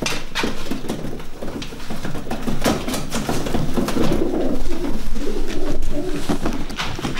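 Racing pigeons cooing continuously in a small loft, with scattered sharp clicks and knocks among them.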